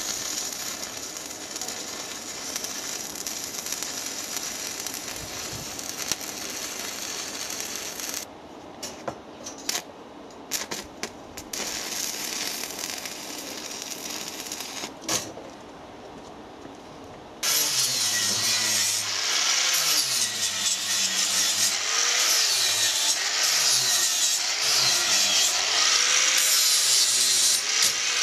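Stick welding arc crackling and hissing on steel, then a few short spurts of arc as further welds are struck. About two-thirds through, a loud angle grinder starts, its pitch dipping and recovering about once a second as it is pressed onto the work.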